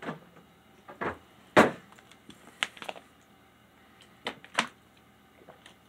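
Plastic drink bottle handled and drunk from: several separate sharp crackles and clicks, the loudest about a second and a half in.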